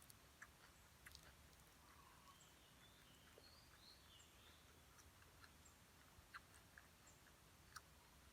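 Faint eating sounds: scattered soft clicks of chewing, with a few faint chirps around the middle.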